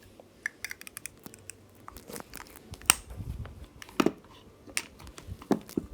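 Lipsticks and other small plastic makeup packaging being handled: irregular small clicks and taps, with a couple of sharper knocks near the middle.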